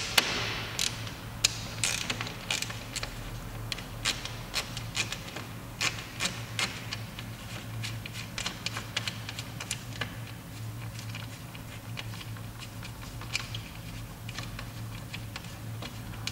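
Hand socket driver with a 10 mm socket clicking as the single screw on the top of a Mercedes W204's front grille is undone. The clicks are sharp and irregular, several a second in the first half, then fewer and more spread out.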